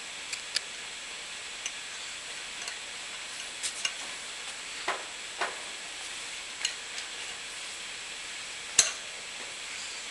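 Scattered small metallic clicks and light scrapes from hand tools threading a HeliCoil insert into an aluminum plate held in a vise, over a steady hiss. The sharpest click comes near the end.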